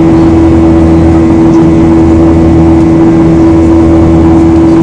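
Boeing 737-800's CFM56-7B turbofan engines heard from inside the passenger cabin during the climb after takeoff: a loud, steady drone with a strong constant hum over a rushing noise.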